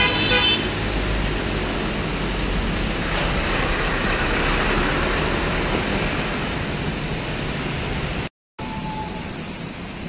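A vehicle horn toots briefly at the start as a truck goes by. It is followed by a steady rush of strong wind in the trees mixed with passing road traffic. The sound drops out for a moment near the end.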